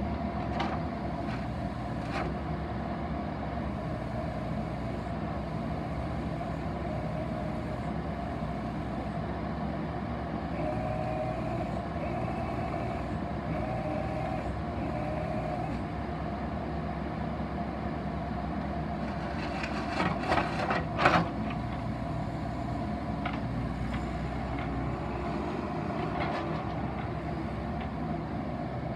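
Bobcat 337 compact excavator's diesel engine running steadily while the boom and arm are worked hydraulically. A brief cluster of sharp metallic clanks, the loudest sound, comes about twenty seconds in.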